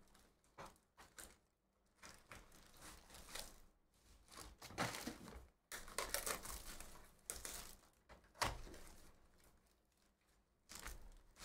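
Faint handling noise from a cardboard trading-card box being opened by hand: plastic wrap crinkling and cardboard flaps tearing and scraping, in scattered short bursts, busiest about halfway through.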